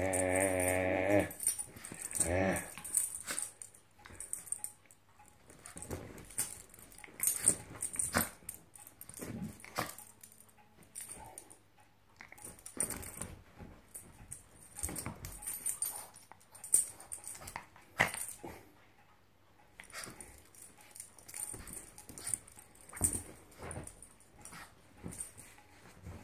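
Chihuahua play-growling and then licking and nibbling at a hand. A held, wavering growl stops about a second in and is followed by a short whine. After that come many short wet licking smacks and clicks, with some rustling.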